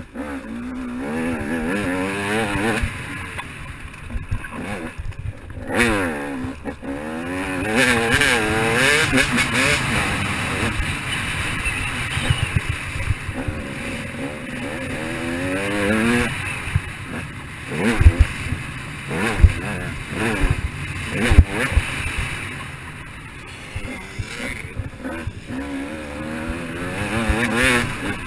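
KTM 200 XC-W two-stroke dirt bike engine revving under riding load, its pitch climbing and dropping again and again as the rider accelerates and shifts through the turns. A few sharp knocks come about two-thirds of the way through.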